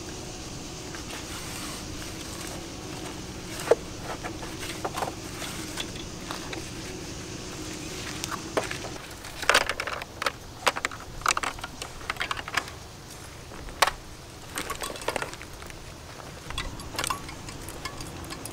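Irregular clicks, taps and light plastic rattles as gear is packed into a plastic crate and an elastic cargo net's hooks are fastened over it. The clicks are sparse at first and come thickest around the middle.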